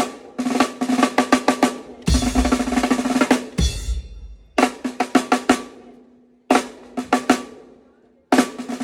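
Drum kit played in short fills for a sound check: quick snare strokes and rolls with a ringing drum tone. About two seconds in, a denser passage adds bass drum and ends in a cymbal ring that fades. After that come brief fills with pauses between them.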